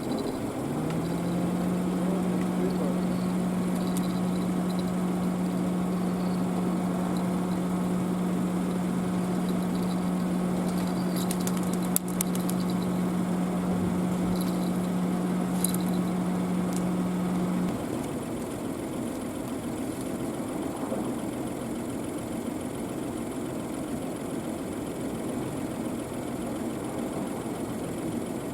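A steady motor hum starts with a short rise in pitch, holds level for about seventeen seconds and then cuts off, over an engine idling steadily. A few sharp clicks come about halfway through.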